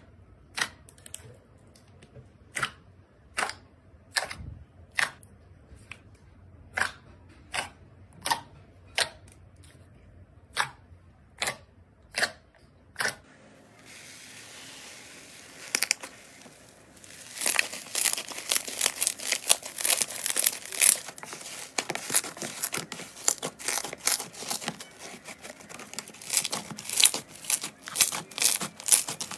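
Slime being pressed and squeezed by hand: for the first half, sharp separate pops at roughly one or two a second as it is pressed. After a brief hiss about halfway in, dense crunchy crackling and popping as a crunchy, bead-filled slime is worked through the fingers.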